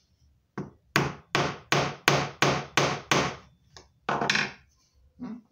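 Small hammer tapping a thin wooden stick into the hole of an octagonal wooden base: about eight sharp wooden knocks, roughly three a second, followed by a few more irregular knocks near the end.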